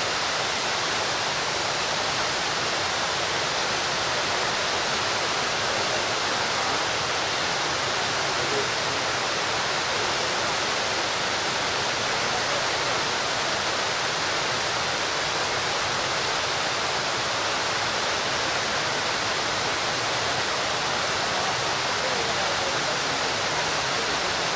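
Large fountain with water pouring steadily over the rim of its raised basin and splashing into the pool below, an even, unbroken hiss of falling water.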